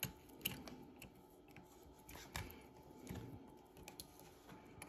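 Faint scattered clicks and rubbing from fingers and a small metal tool handling a Seiko 6139 chronograph watch movement in a plastic movement holder.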